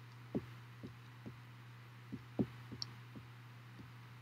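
Low steady hum under about nine soft, irregular taps, the loudest one past the middle.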